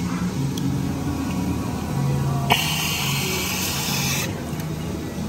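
Soda fountain dispenser pouring a drink into a cup: a click about two and a half seconds in, then a hissing spray for about two seconds that stops abruptly.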